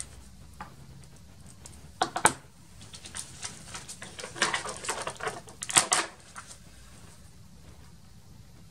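Sharp plastic clicks and taps of stamping tools being handled: an ink pad put away and a clear stamp handled on its acrylic block. Two loud clicks come about two seconds in, then a run of lighter clicks and crackles until about six seconds in.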